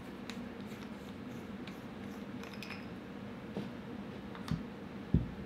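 Quiet handling of an airgun's air tank, regulator and action by hand: a few faint light clicks, then two short dull thumps near the end, the second louder, over a steady low hum.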